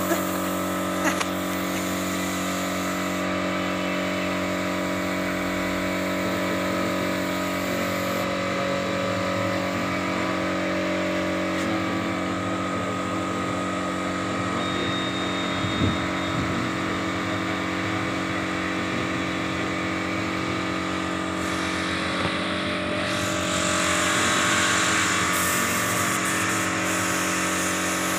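Compressed-air spray gun hissing as it sprays melamine lacquer onto wood, over the steady hum of an air compressor motor running. The hiss swells for a few seconds near the end.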